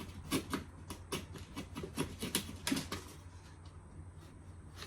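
Faint scratch test on gold plating from a car CD player's circuit board: a quick series of short scrapes and clicks of a tool on the plated metal, thinning out after about three seconds.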